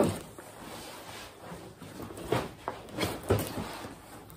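Cardboard box and foam packing being handled while a steel radius arm is lifted out: rustling with a few short knocks, the loudest cluster about two to three and a half seconds in.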